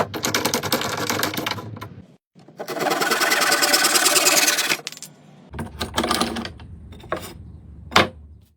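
A small power tool working wood in two bursts of about two seconds each, with a fast, even rattling rhythm. Near the end come a few sharp knocks.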